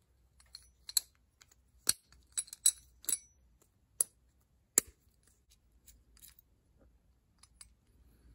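Sharp metallic clicks and clinks, about a dozen at irregular intervals, from the small steel parts of a Ford flathead distributor being handled and turned in the hands. The loudest clicks come in the first five seconds.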